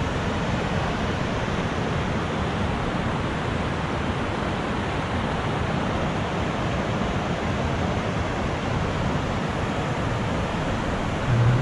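Fast-flowing mountain river rushing: an even, unbroken noise of water.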